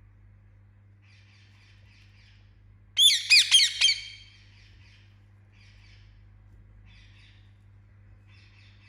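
Indian ringneck parakeet giving a loud burst of about five quick squawking calls about three seconds in, with soft short chattering calls before and after.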